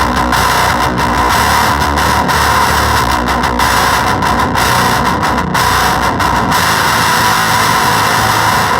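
Electric guitar played through a Gremlin Machine Shop Avedissian octave fuzz pedal: a thick, noisy, heavily distorted fuzz tone that holds at a steady level.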